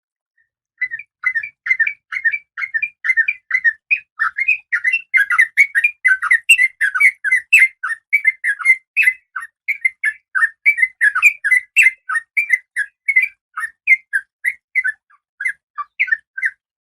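Female oriental magpie-robin calling in a fast, even run of short chirping notes, about three or four a second, beginning about a second in: the breeding-condition call of a female, used to draw a male.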